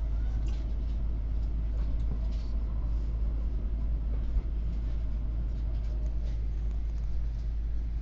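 Steady low rumble inside a Tokaido Shinkansen N700S series passenger car, with a single short knock about four and a half seconds in.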